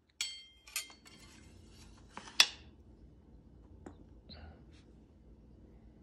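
Steel blade of a British M1887 Mk3 sword bayonet being slid into its brass-mounted leather scabbard: a metallic scrape with a brief ring at the scabbard mouth, a sliding rasp, then a sharp click about two and a half seconds in as the blade seats home, followed by a couple of light taps.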